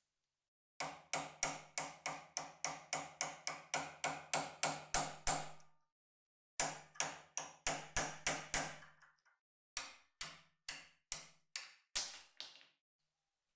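Hammer striking a steel pin punch, driving the rusted pin out of a cast-iron meat grinder's crank handle. It comes in three runs of strikes, about three a second, each with a brief metallic ring.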